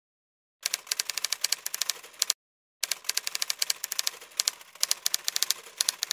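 Typing sound effect: quick typewriter keystroke clicks in two runs, the first about a second and a half long and the second about three and a half seconds, with a short pause between.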